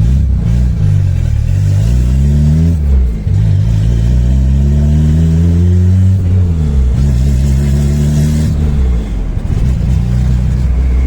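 Turbocharged VW AP 1.9 four-cylinder of a 1995 Voyage, fitted with a Holset HX40 turbo and a 350T cam, accelerating hard through the gears. The engine note climbs, drops at each gear change (three pulls in all), then settles to a steady cruise near the end.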